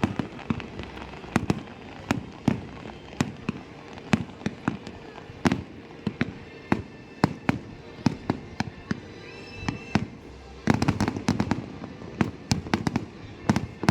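Fireworks display: aerial shells bursting in sharp, irregular bangs, one every half-second or so, breaking into a dense rapid volley about eleven seconds in.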